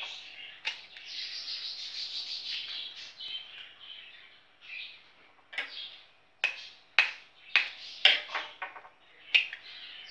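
Eggs tapped and cracked against the rim of a glass bowl and their shells pulled apart: a series of sharp clicks and taps, most of them between about five and a half and nine and a half seconds in. Birds chirp in the background.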